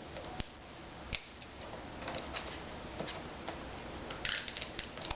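Scattered light clicks and paper-handling sounds as a tape runner lays adhesive on small paper flaps and they are pressed shut, with a short scratchy rasp about four seconds in.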